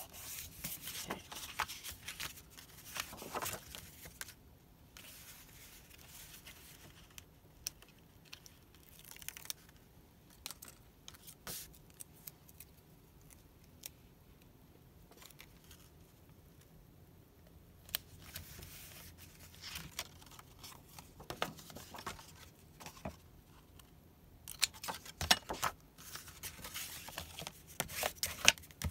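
Paper and cardstock being handled on a craft table: rustling, sliding and light tapping as sheets are moved and pressed down. It comes in short bouts with quiet gaps, busiest near the end.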